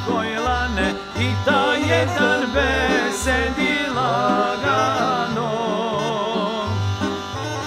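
Instrumental passage of traditional Serbian folk music: a trilling, ornamented melody over a steady, pulsing bass line.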